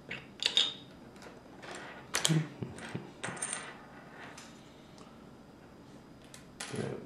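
Loose LEGO plastic pieces clicking and clattering against each other and the table in several short bursts.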